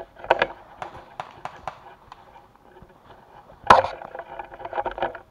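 Irregular sharp clicks and knocks, with one loud crack about two-thirds of the way in and a quick cluster of knocks near the end.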